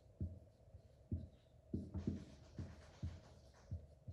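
Dry-erase marker writing on a whiteboard: the tip scratching through letters about halfway in, over a run of low, dull knocks roughly twice a second.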